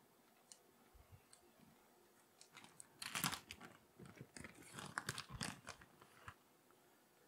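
Plastic bag of shredded cheese crinkling as it is opened and handled, in irregular bursts of rustling from about three seconds in.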